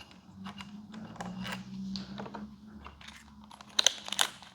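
Small irregular metallic clicks and taps from a tool, a bolt and its washer being handled as a motorcycle's rear light assembly is unbolted, with two sharper clicks near the end, over a faint low hum.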